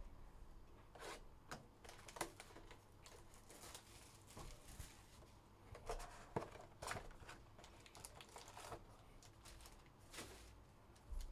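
Faint tearing and crinkling as a cardboard box of Panini Phoenix football cards is opened by hand, its foil card packs rustling as they are pulled out and stacked, in scattered short bursts.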